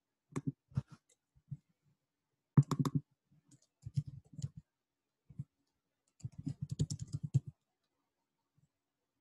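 Computer keyboard keys clicking in short scattered bursts, then a quick run of about ten keystrokes a little past the middle as a terminal command is typed.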